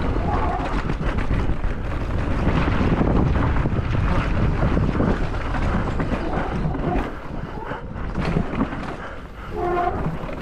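Mountain bike descending a rough trail at speed: a steady rush of wind on the microphone over a continuous rattle and clatter of the bike and tyres on the ground.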